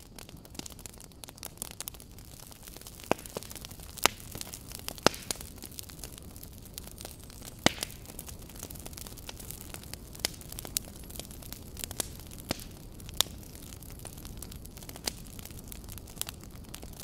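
Fire crackling: irregular sharp pops and snaps over a steady low hiss.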